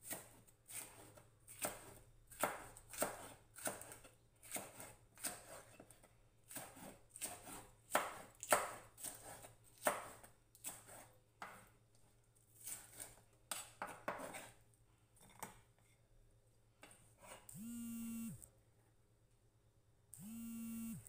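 Chef's knife slicing bell peppers on a wooden cutting board: quick, even strokes about two a second, thinning out after about fourteen seconds. Near the end, two short steady pitched tones, about a second each, come one after the other.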